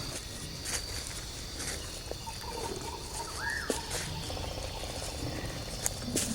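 Jungle ambience: insects keeping up a faint steady high tone, a bird giving a string of short notes and then one short rising-and-falling call about three and a half seconds in, with a few sharp clicks near the end.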